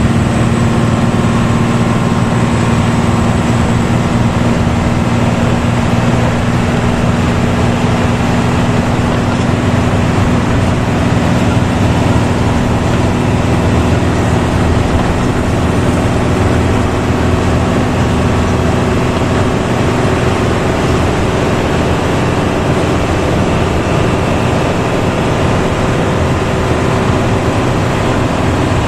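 Intercity bus's diesel engine running steadily under way, with the deep snoring drone of its 'ngorok' exhaust.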